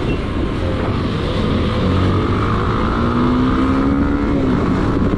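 Motorcycle engine running as the bike rides through traffic, its pitch rising in a rev about two to four seconds in.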